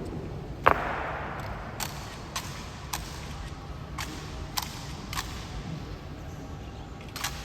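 Honor guard rifle drill: one loud sharp stamp about a second in that echoes through the hall, then a run of lighter sharp clicks and slaps of rifles being handled, roughly one every half second to second, with a quick double click near the end.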